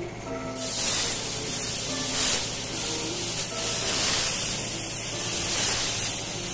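Compressed-air spray gun hissing as paint is sprayed onto a motorcycle fuel tank. The hiss starts about half a second in and swells and eases in several passes. Background music plays underneath.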